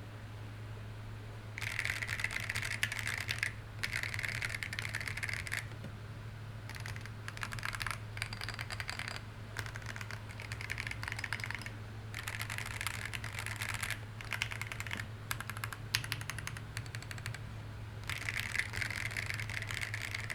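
Typing on a custom 50-percent-layout mechanical keyboard: bursts of rapid key clacks a second or more long, separated by short pauses, starting a little over a second in.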